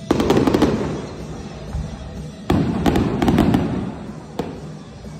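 Aerial firework shells bursting: a quick cluster of bangs and crackles right at the start, a second longer cluster about two and a half seconds in, and a single sharp bang near the end.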